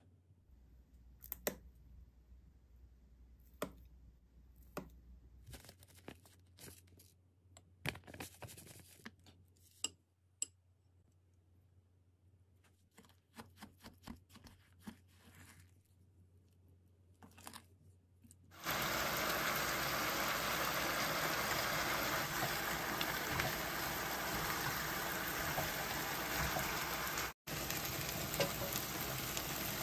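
A wooden spoon clicking and scraping against a glass bowl as a thick chili-paste seasoning is scooped and stirred. About two-thirds of the way in this gives way to the louder, steady sizzle of a pot of vegetables and meat cooking on the stove.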